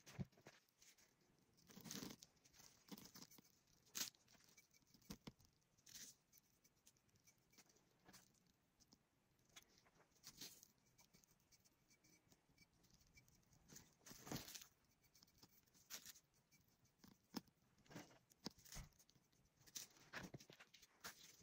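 Faint, scattered crackles, rustles and light taps of hands working on a craft project at a table, a few every couple of seconds.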